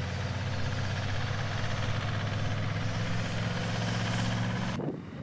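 Diesel V8 engine of a Humvee carrying an Avenger air defense system, running steadily as the truck drives across sand. It cuts off suddenly near the end.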